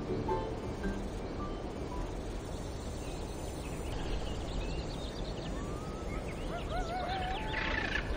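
Nature ambience bed: steady background noise with bird calls, short chirps and warbling whistles that come in about four seconds in and grow busier near the end.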